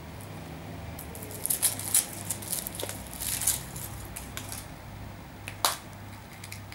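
Thin foil wrapper crinkling and crackling as a chocolate egg is unwrapped by hand, in irregular clusters between about one and four seconds in, followed by one sharp click near the end. A low steady hum runs underneath.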